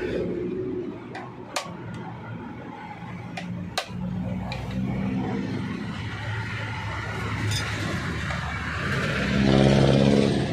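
A few sharp metallic clicks, then a pitched mechanical hum that comes and goes and swells loudest near the end.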